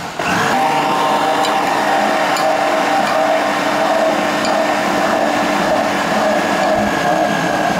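Philips electric countertop blender running steadily with a constant motor whine while grinding a thick spice paste. It breaks for a moment at the start, then runs on.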